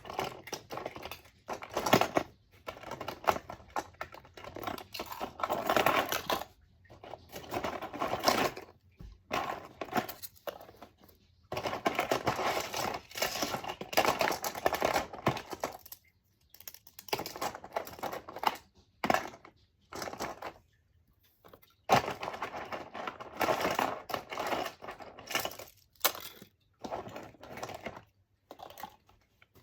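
Small plastic fidget toys clattering and rattling as a hand rummages through a container of them, in runs of a second or two with short pauses between.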